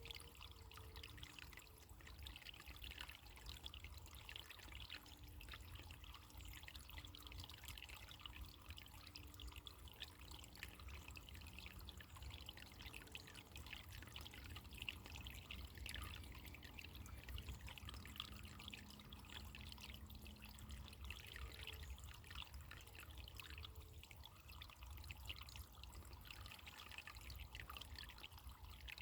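Faint running water, a steady trickle.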